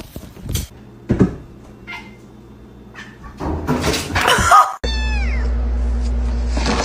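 Domestic cat meowing: a drawn-out call a little after halfway, then a falling meow over a steady low hum.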